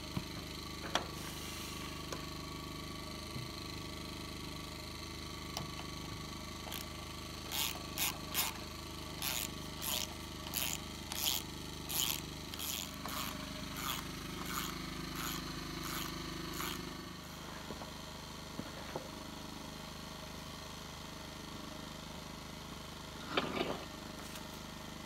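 A screw being driven by hand with a screwdriver through a steel gate hinge into a wooden post: a run of short rasping strokes, about one or two a second, that starts several seconds in and lasts about ten seconds. A brief clatter comes near the end.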